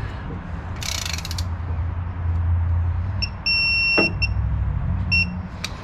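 Digital torque wrench beeping as a cylinder head bolt is tightened: a short beep, then a steady half-second tone about three and a half seconds in as the set torque is reached, then two more short beeps. A brief rasp of the wrench is heard about a second in.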